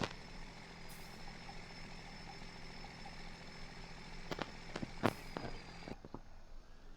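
A vehicle engine running steadily with a low hum, heard quietly. A few sharp clicks come about four to five seconds in, and the hum stops about six seconds in.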